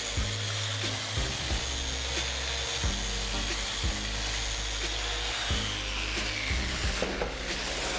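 Festool random orbital sander running against a wooden surface, a steady whirring hiss with a faint whine, under background music with a steady beat and bass line.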